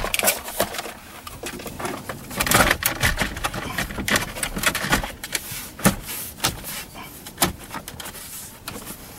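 Plastic center-dash radio bezel of a 2013+ Ram truck being pressed into the dash, with irregular plastic clicks, knocks and rustles as its trim clips snap into place. The clicks are busiest a couple of seconds in, with a few sharper knocks later.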